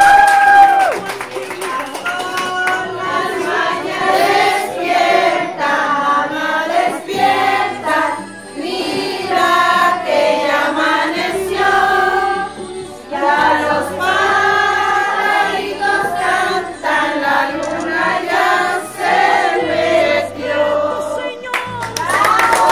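A song with several voices singing together over a low bass line.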